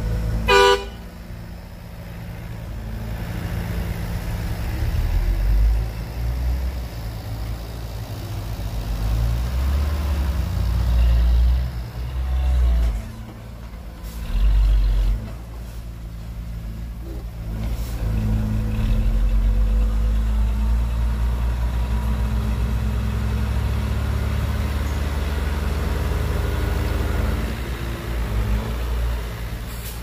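Heavy diesel engines of a bulldozer and dump truck running and working, the rumble swelling and easing several times. A short horn toot sounds about half a second in.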